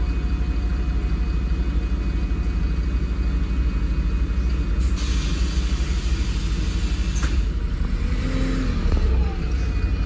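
Diesel engine and Voith automatic transmission of a 2009 MAN 16.240 city bus running, heard inside the cabin at the rear over the engine as a steady low rumble. A brief hiss about five seconds in.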